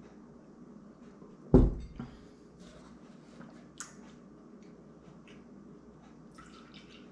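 A drinking glass set down on a wooden table with a heavy thump about one and a half seconds in, then a sharp click, then milk starting to pour from a plastic bottle into the glass near the end.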